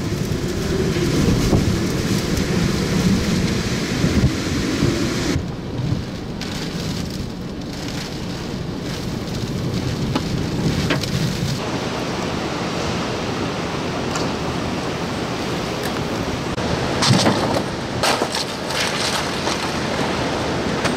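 Hurricane eyewall wind and heavy wind-driven rain, heard from inside a vehicle: a loud, steady rush that swells in gusts. The sound changes abruptly at cuts about five and twelve seconds in.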